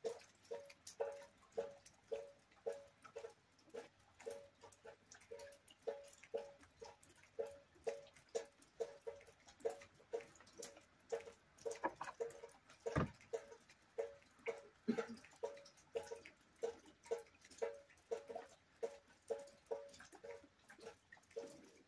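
Rainwater dripping steadily, about two to three drops a second, each landing with a short pitched plop. One louder, deeper drop lands about thirteen seconds in.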